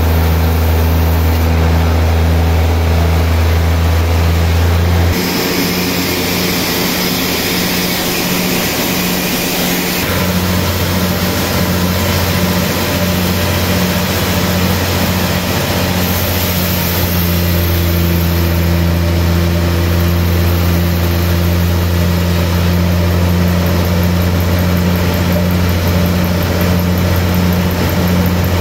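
Large Hata Iron Works vertical band saw running, its blade sawing lengthwise through a big timber slab. A loud, steady machine drone whose low note shifts about five seconds in and again about ten seconds in.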